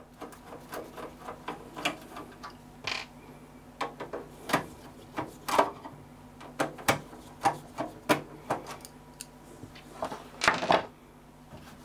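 A screwdriver turning out the side-panel screws at the back of a Pentium III PC tower case: a run of small, irregular clicks and scrapes of metal, with a louder clatter near the end.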